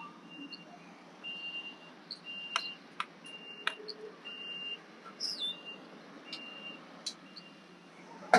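Faint short high-pitched electronic beeps, all at the same pitch, repeating roughly once a second at uneven intervals, with a few sharp clicks between them.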